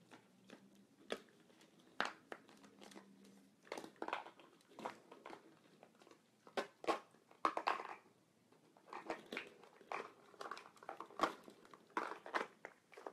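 A fox terrier rummaging among hollow plastic ball-pit balls on a hardwood floor: irregular light clacks and knocks of the balls and its claws, coming in clusters.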